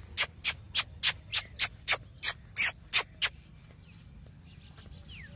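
A quick run of about a dozen short hissing 'ch-ch' clicks from a person's mouth, three to four a second, of the kind made to call a dog over; they stop about three seconds in, leaving faint outdoor background.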